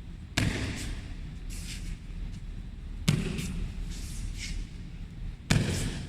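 Three heavy thuds of bodies landing on judo-style mats in aikido breakfalls, with lighter slaps and shuffles between them, over a steady low hum.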